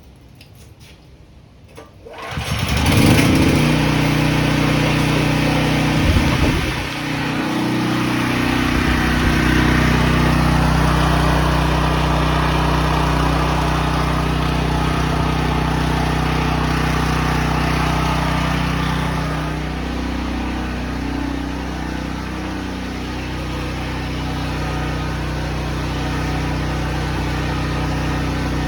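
Briggs & Stratton portable generator's small single-cylinder engine starting about two seconds in, then running steadily after a brief dip and waver in its speed. The generator is running again after being repaired for a no-start.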